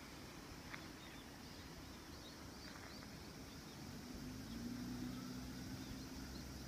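Faint outdoor ambience: a few small bird chirps, and a distant engine hum that comes up about four seconds in and holds steady.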